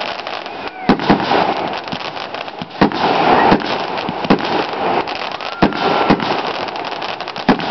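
Fireworks going off: a string of sharp bangs, about seven of them, over continuous crackling, with a couple of short whistles in between.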